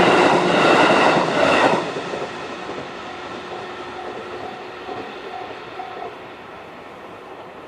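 A JR 211-series electric train runs over the level crossing, loud for the first two seconds, then drops off sharply to a fading rumble as the last car clears. A faint electronic crossing warning bell keeps pulsing about twice a second and stops about six seconds in.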